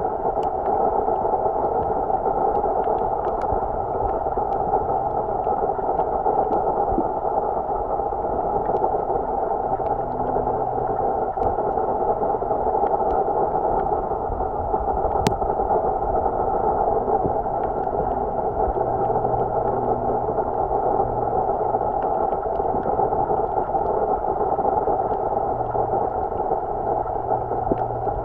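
Steady, muffled underwater noise recorded with the microphone submerged, with scattered sharp clicks, one louder click about halfway through. A faint low hum comes and goes.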